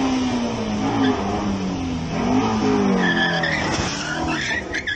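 Ford Mustang's engine revving hard, its pitch falling and rising again, with tyres squealing from about three seconds in as the car slides.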